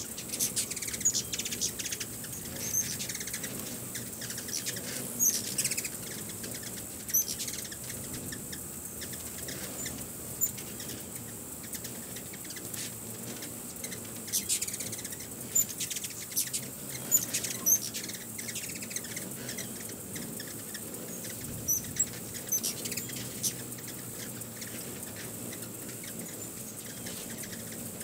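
A crowd of ruby-throated hummingbirds at feeders, giving sharp, high chips and twittering chatters in irregular clusters as they chase one another during a feeding frenzy.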